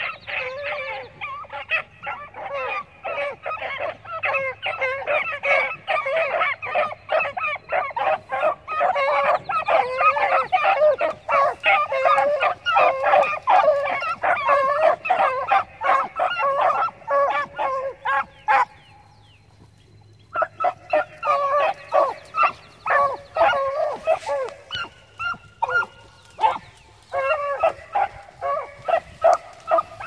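A pack of hounds baying together, many overlapping bawls and yelps almost without pause, as they run a scent line. The pack goes quiet for about two seconds around two-thirds of the way through, then opens up again.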